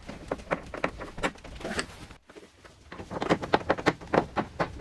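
Rapid, irregular clicks and taps as assembly parts are handled, with a short pause a little past the middle.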